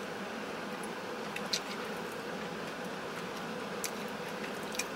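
Quiet eating sounds: a few small clicks of a plastic fork in a paper food bowl, over a steady hum inside a parked car.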